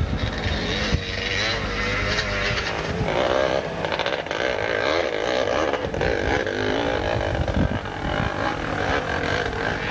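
Dirt bike engines running and revving, their note wavering up and down over a steady noisy background.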